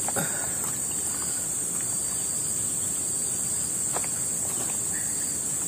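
Steady, high-pitched drone of insects, with a couple of faint clicks. Near the end, short chirps begin repeating a few times a second.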